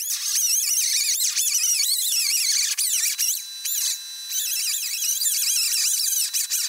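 Pneumatic grinder spinning a polycarbide stripping wheel against the bare steel of a car hood, stripping off paint and surface rust. A high whine wavers up and down in pitch as the wheel is pressed on and eased off.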